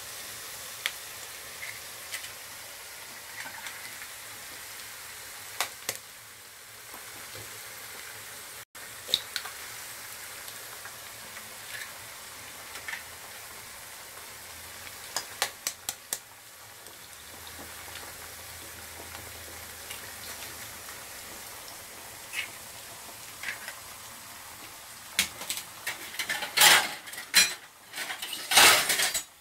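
Eggs frying in hot oil with chopped onion, carrot and green chilli in a non-stick pan: a steady sizzle with scattered small pops. A few loud sharp clatters come near the end.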